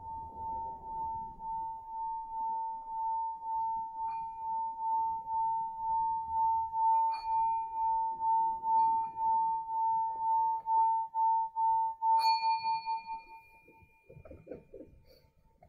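Small metal singing bowl sung by rubbing a mallet around its rim: one steady ringing tone that swells in regular pulses and grows louder, with a few light clinks of the mallet on the bowl. About twelve seconds in, a sharper clink sets off higher ringing overtones, and the main tone dies away within a second or so.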